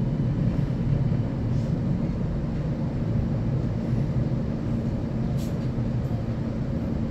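Steady running noise of a rail vehicle on the move: a continuous low rumble with a steady hum.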